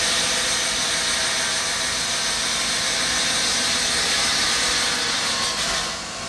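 Large circular stone saw spinning through granite, wet with water spray: a loud, steady hissing whir that drops in level about six seconds in.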